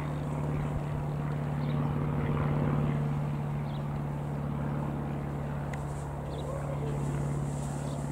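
Robin HR.200-160 light aeroplane's single piston engine and propeller droning steadily at an even pitch, with a few faint bird chirps.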